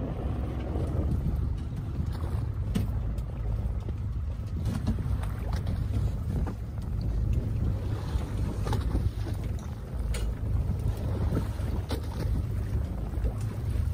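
A fishing boat's engine runs with a steady low rumble, with wind on the microphone and a few faint clicks now and then.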